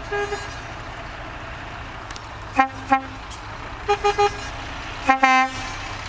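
Truck horn tooting in short groups of two and three quick toots, alternating between a higher and a lower pitch, over the low steady hum of a truck engine.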